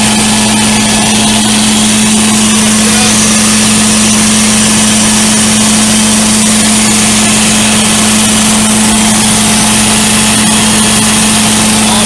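Carpet-cleaning truckmount running steadily: its 23.5 horsepower Kohler engine driving the vacuum blower and Cat pump. It makes a loud, even drone with a strong steady hum.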